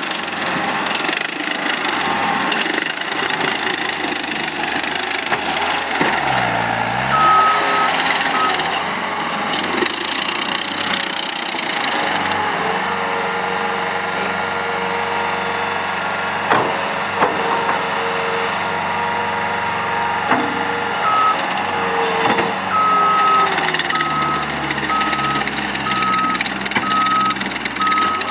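Caterpillar 287B rubber-track skid steer loader working, its engine running steadily and changing speed, with the backup alarm sounding a high pulsed beep while it reverses, about seven seconds in and again through the last part, about one beep a second. A few sharp clanks from the machine come through.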